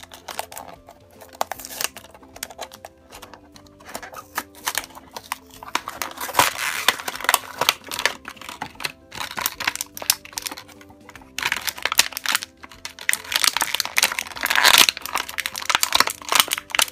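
Clear plastic toy packaging crinkling and tearing as it is pulled open and unwrapped by hand, in bursts that are densest about six seconds in and again near the end. Light background music plays underneath.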